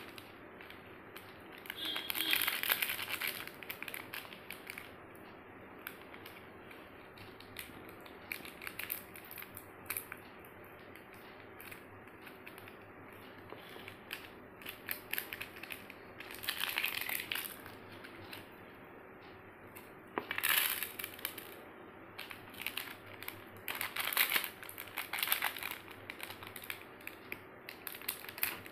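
Foil-lined plastic candy sachets crinkled and torn open by hand, in several loud bursts of crackling with small rustles and clicks between.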